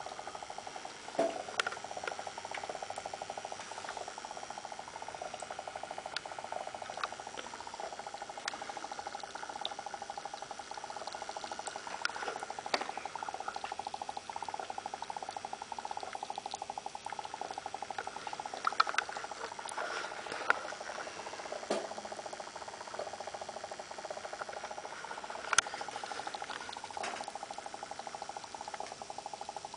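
HHO electrolysis cell running, its water bubbling and fizzing with a steady, fast-pulsing hum and scattered sharp ticks. The hum is the weird sound that the maker takes for resonance, which he says fades once the water turns rusty.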